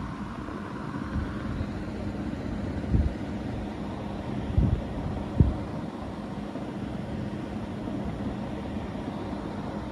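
Steady low rumble close to the microphone, with three soft thumps: one about three seconds in and two close together near the middle.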